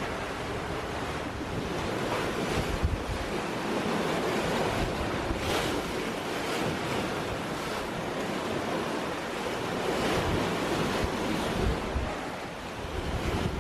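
Wind and sea rushing past a sailing catamaran underway, with wind buffeting the microphone. A few louder rushes of water stand out, around three and five-and-a-half seconds in.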